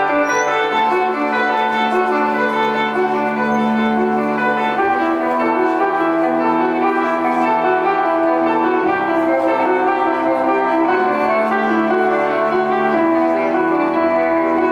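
Slow instrumental music with long held chords that change every second or two.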